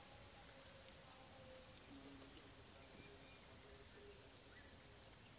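Faint, quiet room tone under a steady high-pitched insect drone, such as crickets, with a few soft clicks.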